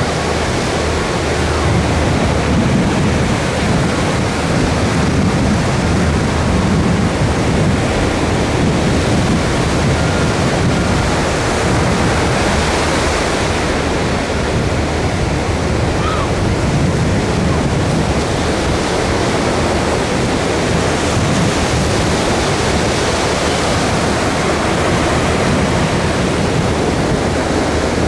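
Ocean surf breaking and washing up onto a sand beach in a continuous rush of noise.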